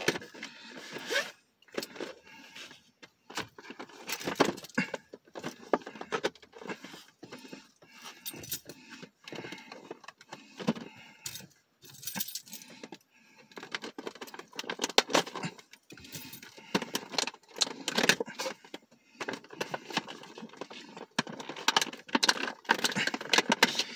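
A set of keys jangling and scraping as they are used to pry and cut open a cardboard-and-plastic action figure package. The packaging gives irregular crinkles, clicks and cracks.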